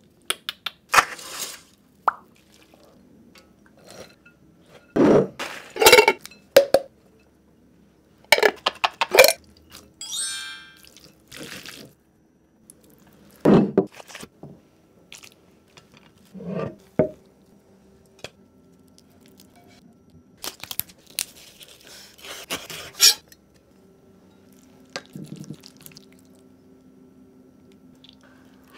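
A string of separate cooking sounds with short pauses between them: clinks and knocks of a pot and utensils, crunches, and crumpled aluminium foil being handled. Quiet background music runs underneath.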